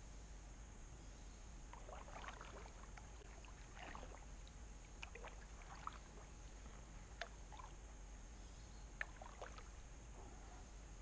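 Kayak paddle strokes in calm water: faint splashes and drips from the blades about every two seconds, with a few sharp light clicks.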